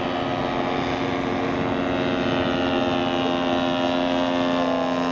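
Large radio-controlled model biplane flying low with its engine and propeller running at a steady pitch as it comes in to land. The pitch sags slightly in the later seconds.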